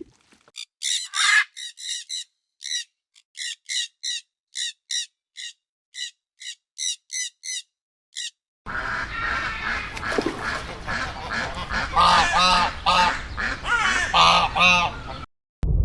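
A series of short, high-pitched chirping calls, about two a second with silence between them. After about eight seconds a flock of waterfowl starts honking and calling over one another, ending abruptly.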